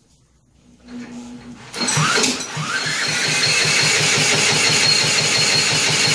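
Electric drill spinning over the Mitsubishi Silver Pigeon scooter's 125cc four-stroke engine through a socket on the crank nut, to try to make it fire. After a short blip about a second in, the drill whines up and settles into a steady run, with an even pulsing of about eight beats a second as the engine turns over without starting.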